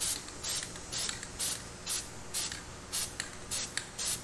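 Aerosol can of dye-penetrant developer sprayed in short hissing puffs, about two a second. This lays a light dusting coat, not a wet one, onto a cylinder head for crack inspection.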